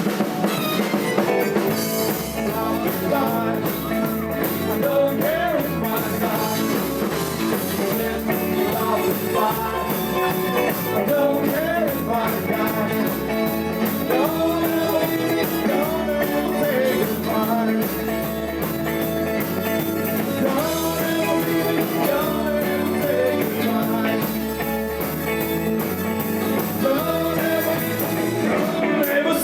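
Live blues rock-and-roll band playing an instrumental break, a lead line sliding in pitch over a stepping bass line and drums.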